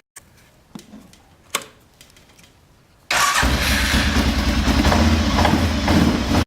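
A few faint clicks and knocks, then a four-wheeler's engine starts about three seconds in and runs steadily.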